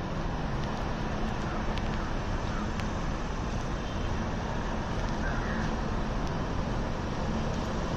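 Steady rumble of a Mumbai local electric train approaching from a distance, blended with traffic noise. A crow caws faintly about five seconds in.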